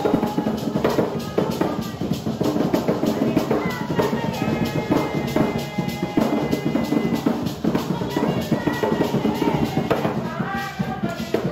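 Live Garifuna hand drumming: several wooden drums played with bare hands in a fast, dense, steady rhythm. Voices sing over the drums, held lines that rise and fall, strongest near the end.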